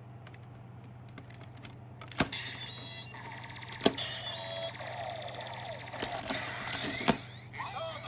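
Kamen Rider Double Driver toy belt being worked with the Fang and Eternal Gaia Memories: light clicks of the memories being handled, then sharp plastic clicks about two seconds in and again near four, six and seven seconds as the driver is operated, with the toy's electronic transformation sound effects playing from its speaker in between.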